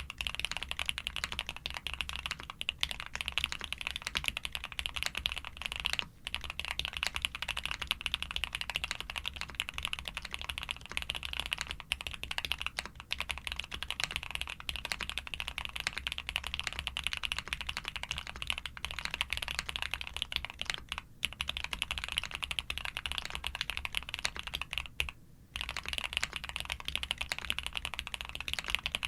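Continuous fast typing on a Suit80 custom mechanical keyboard with SP-Star white switches in Cherry top housings, a POM plate, DMK keycaps and full foam: a dense run of keystroke clacks, broken by a few short pauses.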